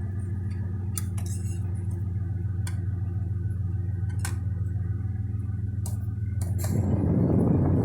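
Engine of a 2004 Pontiac GTO idling steadily, with a few light clicks in the first seconds. Near the end, a louder steady rush of air sets in over the idle as the air-conditioning blower comes up.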